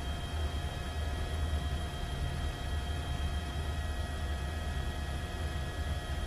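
Helicopter engine and rotor noise heard from on board: a steady low rumble with a constant high whine over it.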